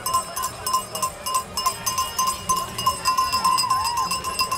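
A cowbell rung fast and steadily by spectators, a clear ringing note struck about four times a second, with the voices of the crowd rising around it about three seconds in.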